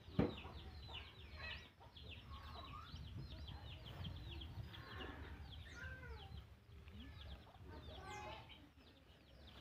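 Chickens in the background: a dense, steady run of short, high, falling peeps like chicks, with a few lower clucks, over a low rumble. There is a single sharp knock just after the start.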